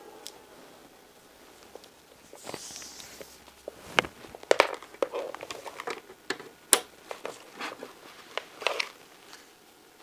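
Hands handling network cables on a desk: a brief rustle, then a string of sharp clicks and knocks as an Ethernet cable's plug is pushed into a port of a network switch, the loudest clicks about four and nearly seven seconds in.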